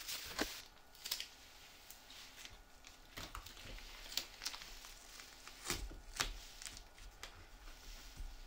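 Scattered clicks, taps and rustles of things being handled by hand, about a dozen short sharp sounds spread irregularly, the loudest about six seconds in.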